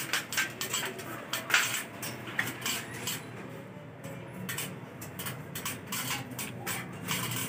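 Irregular light clinks and taps of hard objects knocking together, some with a metallic ring.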